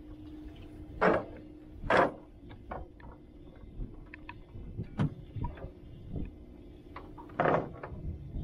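Cast net being handled and gathered up on the boat: three loud short swishes, about one and two seconds in and again near the end, with scattered light knocks and clicks in between.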